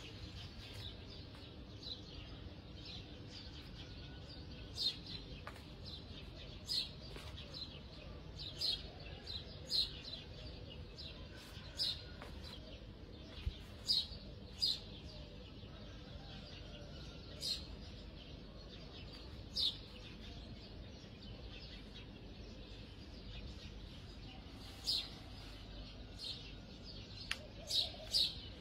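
Short, high-pitched chirps every second or two, at uneven intervals, over a low steady hum.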